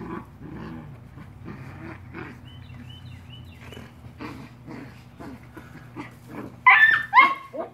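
Black Mouth Cur puppy growling and grunting in play as she bites and tugs at a man's trouser leg, with a few loud high yips near the end.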